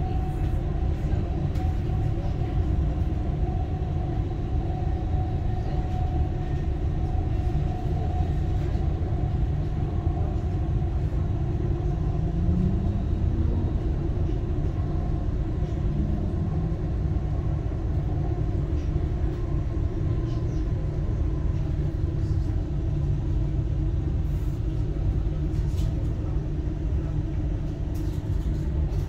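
Dubai Metro Red Line train running between stations, heard from inside the carriage: a steady low rumble with a faint whine, and a short rising tone about twelve seconds in.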